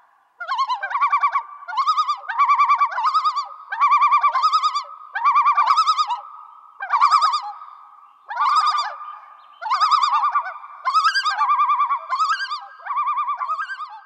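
An animal call, a rapid warbling trill given in about a dozen short bursts roughly once a second, each burst a quick quavering run of notes on much the same pitch.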